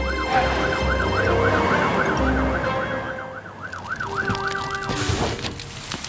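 Cartoon fire truck siren wailing in a fast up-and-down warble, about four rises and falls a second, stopping about three and a half seconds in.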